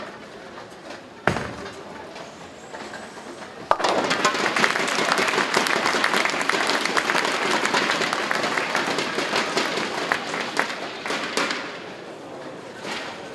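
A bowling ball lands on the lane with a thud about a second in, then hits the pins with a sudden crash near four seconds in, knocking down the remaining pins for a spare. The crowd applauds right after, for about eight seconds, fading out near the end.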